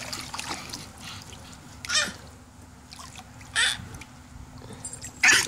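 A toddler splashing her feet in the shallow water of a plastic kiddie pool: three short splashes about a second and a half apart, with her excited squeals.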